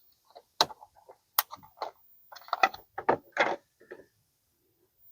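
Small plastic clicks and rattles of an LED turn-signal bulb and its socket being handled and pushed together, with a few sharp separate clicks in the first two seconds and a quick flurry of them around three seconds in.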